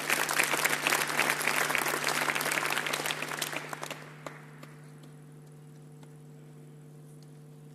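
Audience applauding, the clapping dying away about four seconds in, after which only a low steady hum remains.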